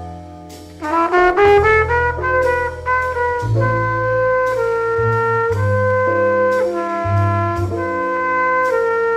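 Jazz trumpet playing a quick rising run about a second in, then a phrase of longer held notes, over a bass line.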